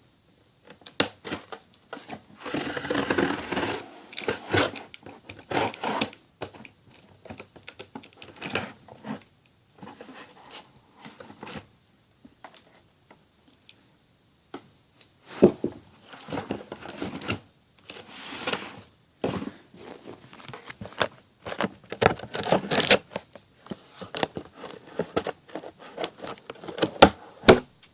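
Paper tearing and crinkling, with scrapes and light knocks, as a sneaker box is opened and its paper wrapping handled. The rustling comes in irregular bursts, with a lull of a few seconds about halfway through.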